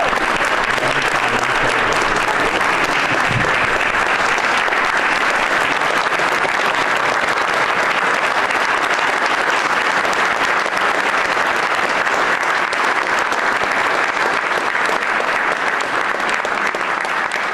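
Applause from a room full of people, long and steady, easing a little near the end.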